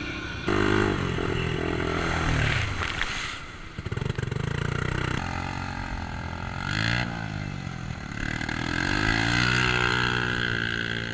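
ATV engines running and revving, the engine pitch sweeping up and down several times, with abrupt jumps in the sound where the shots change.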